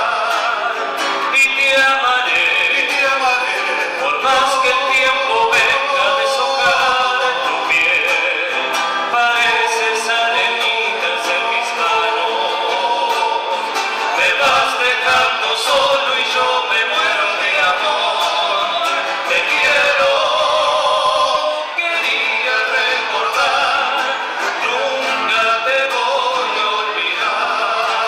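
Male voices singing an Argentine folk song, accompanied by two acoustic guitars.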